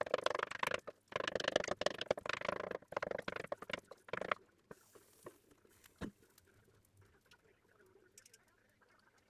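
Flatbread cooking in a covered pan, crackling and sizzling under the lid; the crackle dies down about four seconds in, leaving only a few faint pops.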